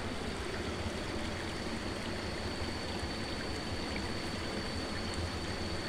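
Water of a small muddy stream running and trickling steadily, with a thin steady high tone behind it.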